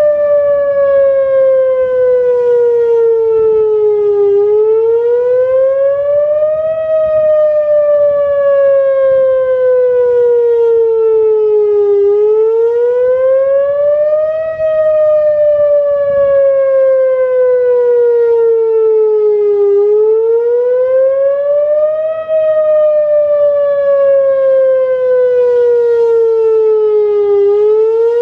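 Whelen WPS-2904 electronic outdoor warning siren sounding its wail tone on a test. The pitch rises over about two and a half seconds, then falls slowly for about five, over and over, loud and steady.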